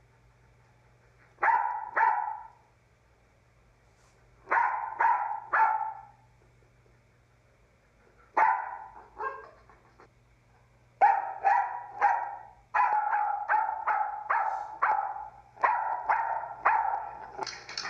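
Small black-and-white terrier barking in short bursts of two or three barks with pauses between. About eleven seconds in, the barks come faster, two or three a second, almost without a break.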